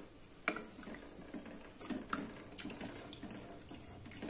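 Wooden spatula stirring thin, watery tomato gravy in an aluminium pressure cooker: faint sloshing with a few light knocks of the spatula against the pot.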